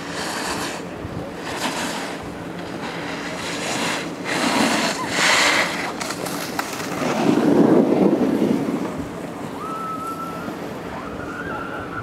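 Wind buffeting the microphone of a camera riding a chairlift, coming in gusts, the strongest swelling about seven to nine seconds in. Near the end, two short thin whistling tones.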